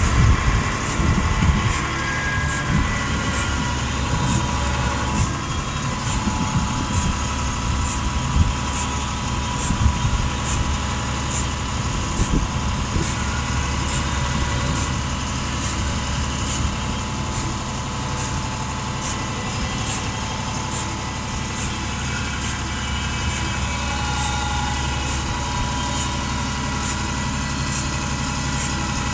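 Bucket truck's engine running steadily while the boom lifts and swings a heavy log on a chain, with a light tick about once a second. A few louder knocks come in the first dozen seconds.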